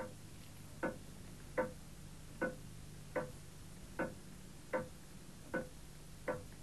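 A clock ticking steadily, about five even ticks every four seconds.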